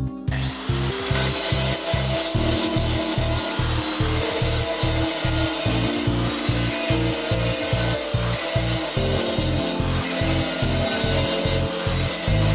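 Angle grinder spinning up and grinding the welded joints of a metal tube frame, its high whine dipping under load and climbing again every couple of seconds. Background music with a steady bass beat runs underneath.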